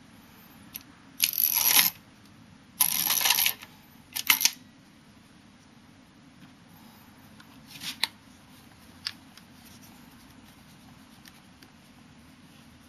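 Parts of a Hasselblad 1000F camera being handled: two short scraping slides, then a quick cluster of metallic clicks and knocks, and a couple of fainter clicks later as pieces are set down and picked up.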